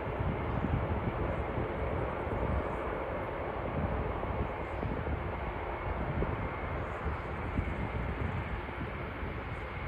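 Airbus Beluga cargo jet's engines running: a steady jet noise with a heavy low rumble and a faint whine, easing slightly toward the end.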